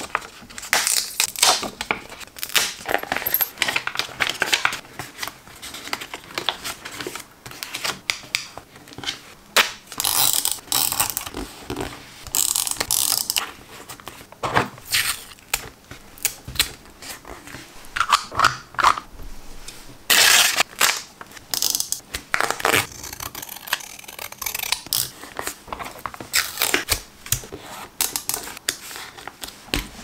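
Paper and washi tape handled up close: a dense run of short rustles, crinkles, clicks and scrapes, with several longer, louder crackling spells.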